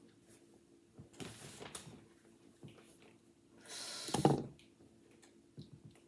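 Handling noise from a smartphone and its plastic holder: a soft rustle about a second in, then a louder scraping rustle ending in a knock about four seconds in as the phone is taken away.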